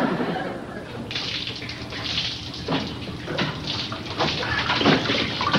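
Water sloshing and splashing in a carried container, surging in step with the carrier's walking, about once every three quarters of a second.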